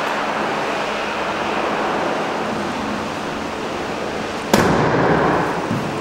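Steady background hiss, then about four and a half seconds in a sudden bang, loud for about a second: the tailgate of a Volkswagen Amarok pickup slammed shut.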